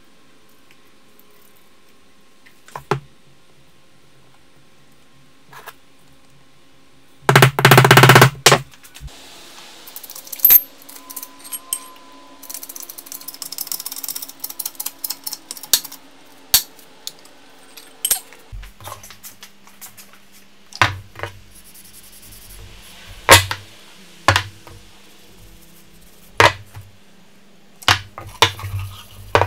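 Workshop handling sounds: scattered sharp clicks and knocks, with a short loud clatter about seven seconds in. Then a run of quick clicks while a hand-pumped hydraulic press is worked to seat a steel hammer head on its wooden handle, and later separate knocks as the hammer is handled on a stone slab.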